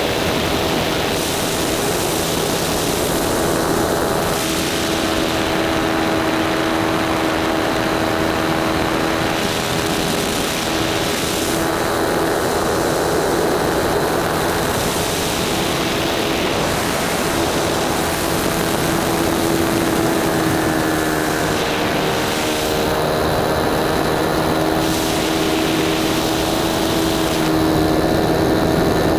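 Nitro glow engine of a 120-size RC sport plane running steadily in flight, heard from a camera mounted right beside it, its pitch wavering as the plane manoeuvres. Wind and propeller rush over the camera rises and falls.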